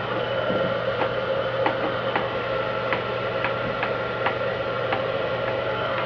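A steady mechanical hum with a fixed whine, with irregular light clicks and ticks on top, about one or two a second.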